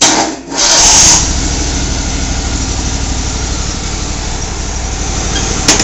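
Exmark Laser Z zero-turn mower's 25 hp Kohler Command Pro engine comes in with a loud burst in the first second, then runs steadily with an even pulsing beat. A sharp click sounds near the end.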